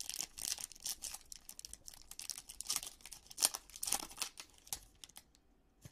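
Foil wrapper of a 2020 Topps Allen & Ginter Chrome trading-card pack crinkling and tearing as it is ripped open by hand, in many short crackles, loudest about three and a half seconds in, then dying away near the end.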